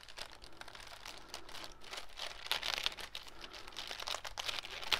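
A shipping bag crinkling and rustling in the hands as it is slit open with a small utility knife: a continuous run of quick, light crackles.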